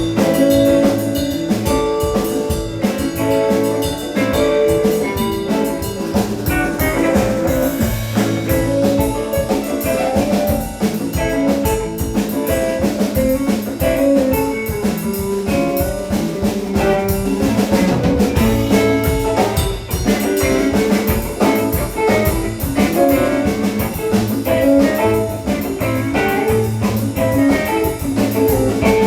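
Live band playing an instrumental passage: drum kit keeping a steady beat under guitar.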